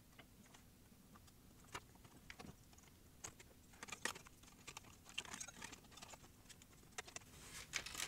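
Faint, irregular clicks and taps of a circuit board and its metal shield cover being fitted back into a Philips DCC900 cassette deck during reassembly, more of them in the second half.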